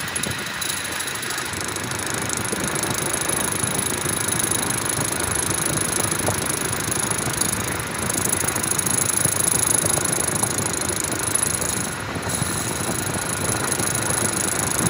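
Metal lathe running while a cutting tool turns an aluminium truck engine piston: a steady machining noise with a thin, high, even whine over it.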